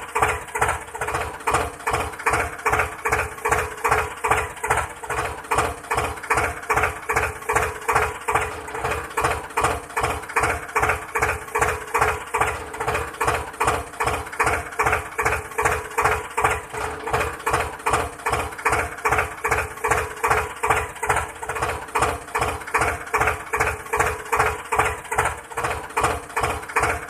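Tractor engine sound chugging at an even pace, about two and a half beats a second, over a steady hum.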